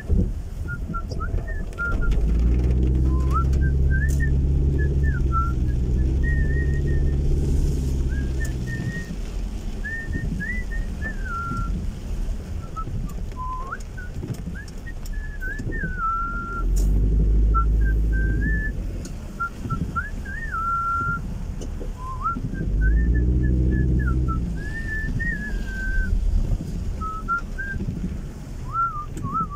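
A person whistling a wandering tune in short, gliding, warbling notes inside a moving car. Under it the car's engine hums low and swells louder three times as the car speeds up.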